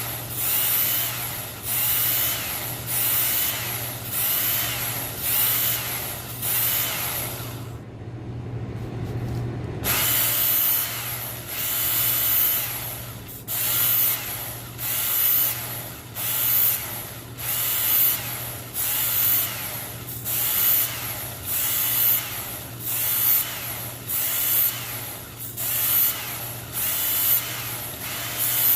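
Electric knife sharpener running steadily while a Bubba Blade fillet knife is drawn across it in repeated grinding passes, about one a second, with a short pause about eight seconds in. The edge is being reshaped to grind out deep gouges.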